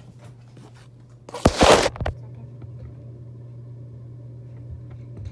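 A brief loud rustling clatter of things being handled, most likely as a black pencil or marker is picked up. After it comes a steady low hum with a few faint small ticks.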